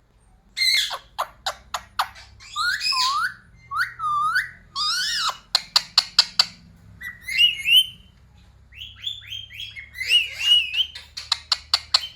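Pet Indian ringneck parrot whistling and chattering: curving whistled notes, a quick run of clicks about halfway through, then a series of short rising chirps and a wavering whistle near the end.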